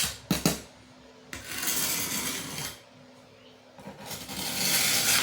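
Thin-set mortar being scraped across the back of a tile with a hand tool to butter it, in long, gritty scraping strokes. There is a sharp click just after the start.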